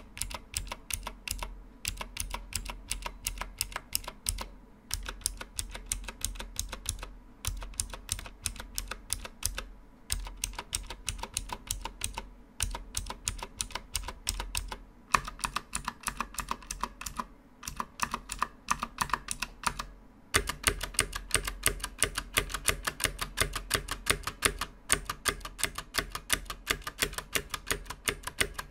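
Fast typing on an ABKO K645 mechanical keyboard with clicky GTMX blue switches: a dense, continuous run of key clicks, broken by a few short pauses.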